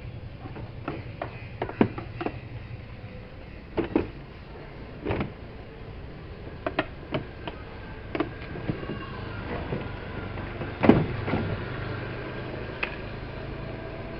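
Scattered knocks and clicks of tools and washing-machine parts being handled during disassembly, over a steady low hum. The loudest knock comes near the end.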